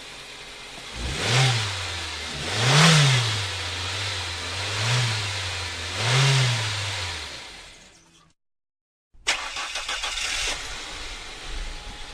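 A car engine starts about a second in and is revved four times, each rev rising and falling, then dies away. After a second of silence another engine start begins, with rapid even pulses like a starter cranking.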